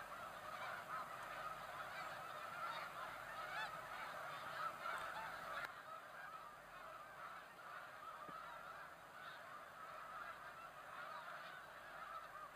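A large flock of snow geese calling all at once: a faint, dense chorus of overlapping honks with no single call standing out, a little quieter after about six seconds.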